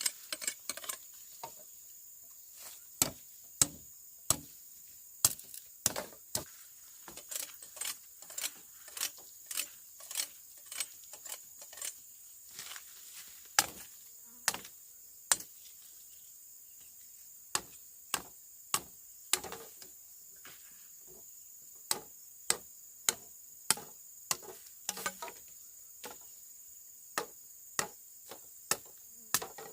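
Repeated sharp knocks of a hand tool striking, irregular at about one to two a second with a couple of short pauses, over a steady high insect drone.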